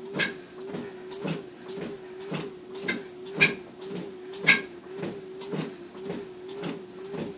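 Treadmill running at a walking pace on an incline: a steady motor hum that dips and wavers with every step, and footfalls on the belt about twice a second, two of them louder near the middle.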